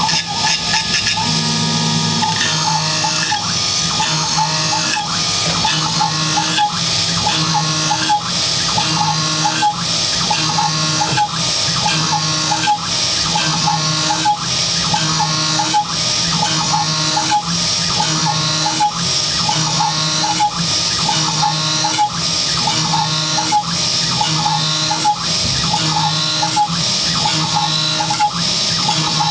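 Small hobby CNC milling machine cutting a packaging-plastic part, its spindle running steadily while the axis stepper motors whine in changing pitches. The tones repeat in a cycle every second or two as the tool follows an adaptive clearing path.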